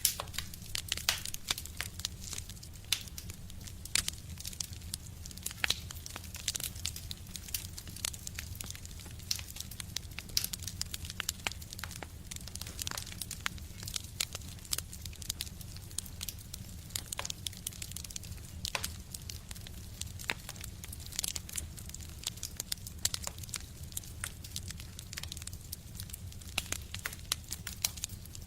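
Wood fire burning in a stove: dense, irregular crackling and popping over a steady low rumble.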